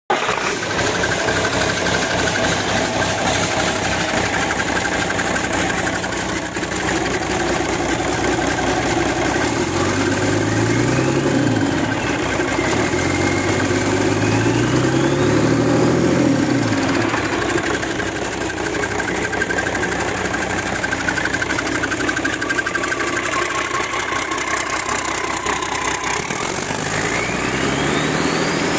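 Mercedes-Benz OM 906 inline-six turbodiesel running on a test stand out of the truck: idling, then revved up and let back down twice, with a whine that rises and falls with the revs, and revving up again near the end.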